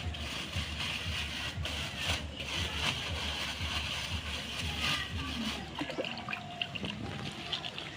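Water trickling and splashing, with a few light ticks near the end.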